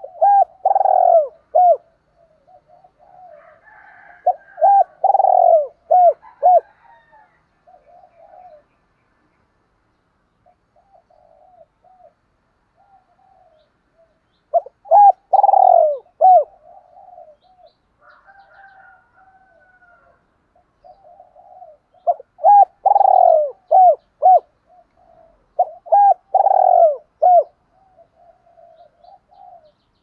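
Spotted dove cooing: several short coos repeated in loud phrases near the start, about five seconds in, around fifteen seconds, and twice more in the last third, with softer, quieter coos between the phrases.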